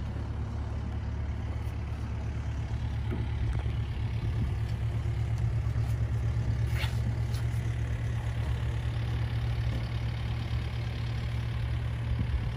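Cat 308 mini excavator's diesel engine running steadily with a low, even drone.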